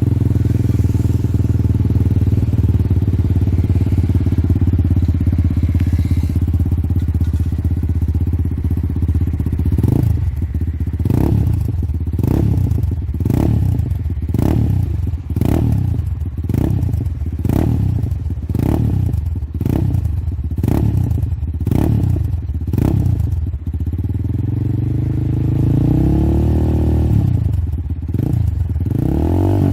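GPX Razer 220 motorcycle engine through an 18-inch Akrapovič-style aftermarket exhaust. It idles steadily for about ten seconds, then gives a run of quick throttle blips about one a second, then two longer revs near the end.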